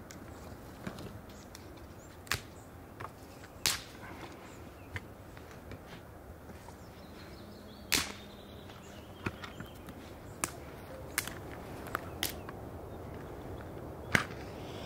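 Dry twigs and sticks snapping sharply as they are broken by hand for kindling. There are about ten separate cracks at irregular intervals, and the loudest come near the middle and near the end.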